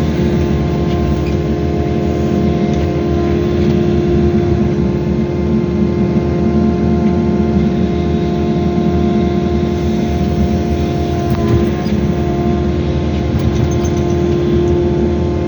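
Wheeled excavator's diesel engine running at steady working revs, with a constant whine from the hydraulics as the machine works. A single knock about eleven and a half seconds in.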